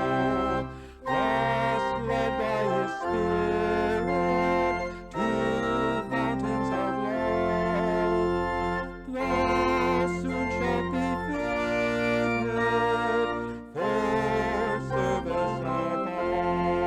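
Organ music: held chords in phrases, with a short break between phrases about every four seconds.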